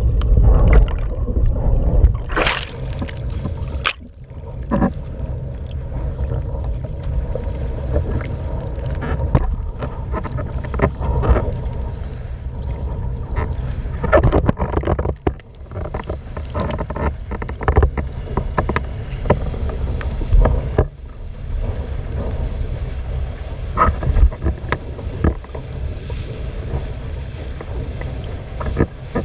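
Windsurfing under sail: wind rumbling on a boom-mounted camera's microphone and water rushing and splashing past the board, with irregular splashes. At the start the sound is muffled while the camera is underwater.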